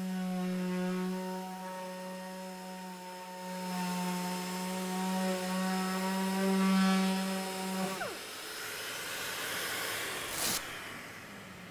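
Random orbital sander running steadily with an even hum as it sands a GRP panel's gelcoat with a P800 disc. About eight seconds in it is switched off and its pitch falls away as it spins down, followed by a hiss and one short sharp click near the end.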